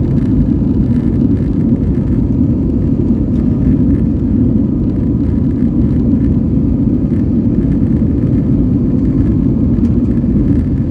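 Steady, even rumble of an Airbus A320's jet engines and airflow in flight, with a faint steady hum above it.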